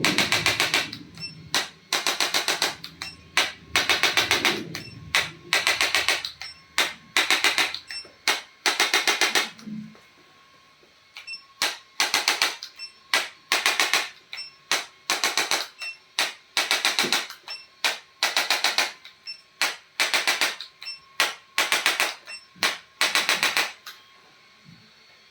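Handheld chiropractic percussion tool working on the body in short bursts of rapid mechanical taps, about one burst a second, with a brief pause partway through.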